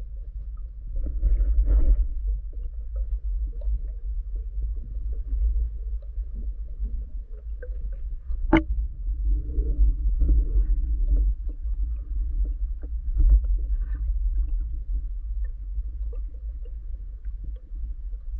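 Muffled underwater noise picked up by a camera submerged in murky lake water: a steady low rumble with scattered faint knocks and crackles, and one sharp click about eight and a half seconds in.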